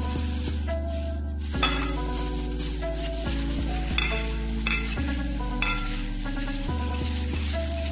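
Background instrumental music: sustained bass and chord notes changing every second or so, with a steady high hiss and a few light clicks.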